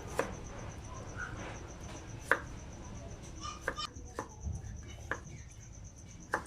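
Kitchen knife cutting ginger on a chopping board: sharp single knocks, irregularly spaced about a second apart.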